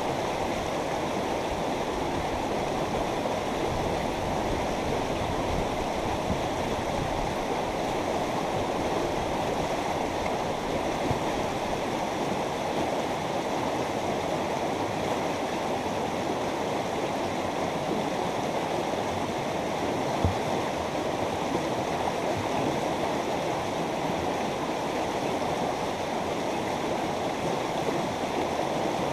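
A mountain river's water rushing steadily over rocks.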